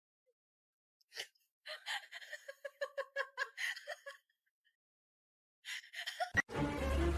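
A high voice giggling in a quick run of short, breathy bursts, a few more coming just before an abrupt cut.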